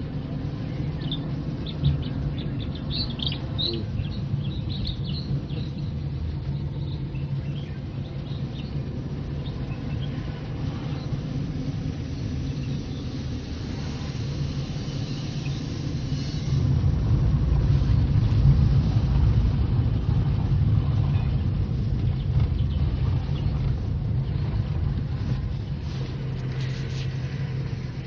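Car heard from inside the cabin while driving: a steady low rumble of engine and road noise that swells louder for a few seconds past the middle. Birds chirp faintly in the first few seconds.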